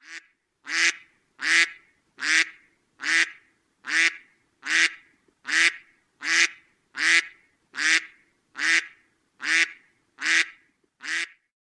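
Mallard duck quacking in a steady series of about fifteen short, loud quacks, roughly one every 0.8 seconds, with silence between them.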